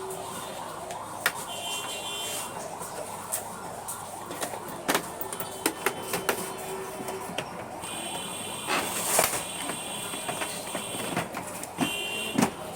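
Epson L380 inkjet printer mechanism running, its motors whining in short stretches that start and stop, with scattered clicks and knocks.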